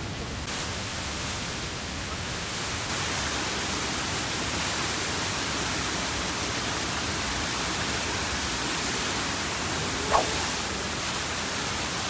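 The roar of Niagara Falls pouring down past the mouth of a rock tunnel: a steady rushing noise, echoing in the tunnel, which grows a little louder about three seconds in. A brief sharp sound stands out about ten seconds in.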